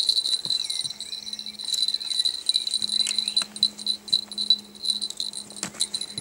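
A small bell jingling without a break, its high ringing pulsing unevenly, with a few sharp handling clicks over it.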